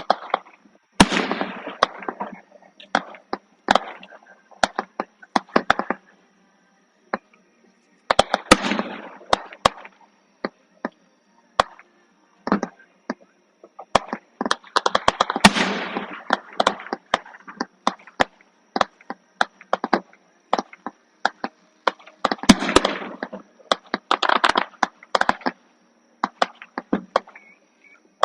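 Fireworks going off: many sharp bangs and dense bursts of crackling, the biggest bursts coming every few seconds.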